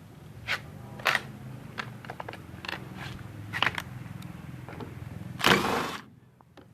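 Metal clicks and knocks of tools at work on a broken washing machine's motor and gearbox, over a steady low hum. A louder rasping scrape lasts about half a second near the end, then the sound cuts off suddenly.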